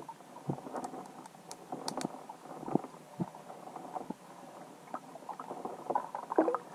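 Underwater sound picked up by a submerged camera: irregular soft clicks and knocks over a muffled watery hiss.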